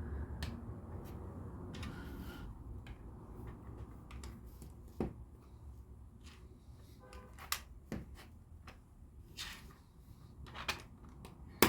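LEGO plastic pieces being handled on a table: scattered sharp clicks and ticks of bricks being picked up, set down and pressed together, the loudest click near the end.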